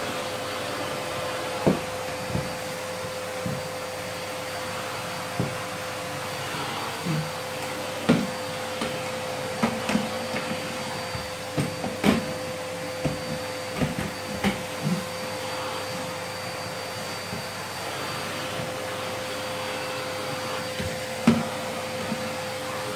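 Canister vacuum cleaner running steadily, a constant hum with a held tone, as its floor nozzle is pushed over the floor. Scattered short knocks and clacks break in at irregular moments.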